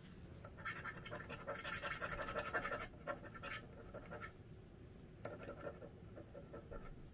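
A flat scratching tool scraping the coating off a paper scratch-off lottery ticket in quick, repeated strokes. It comes in two bouts: a longer, louder one from about half a second in to past three seconds, and a second one in the last two seconds.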